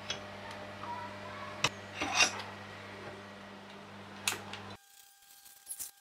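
Clicks and knocks of a plastic one-handed bar clamp being set and squeezed onto a wooden disc over sandpaper, the loudest cluster about two seconds in, over a steady low hum. After a cut, near the end, a utility knife begins scratching through the sandpaper.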